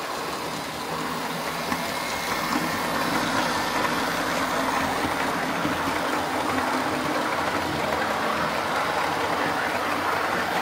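OO gauge model diesel locomotive and coaches running along the track. A steady motor hum and wheel rumble grows louder about a second in as the train comes closer, then holds steady.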